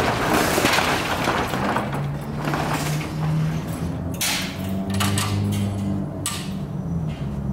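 A metal roll-up shop door rattling open, followed by background music with held low notes and a few sharp hits.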